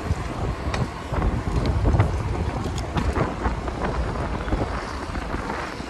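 Wind buffeting the microphone of a chest-mounted camera on a bicycle ridden fast, a steady low rumble with a few light clicks.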